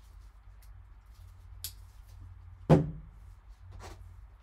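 Handling of a cardboard card box on a tabletop: a light click about a second and a half in, then one sharp, loud thump about a second later, with a low steady hum underneath.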